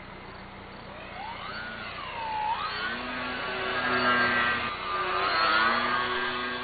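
Radio-controlled foam model airplane's electric motor and propeller whining as it flies past, the pitch swooping up and down, loudest near the end as it passes close overhead.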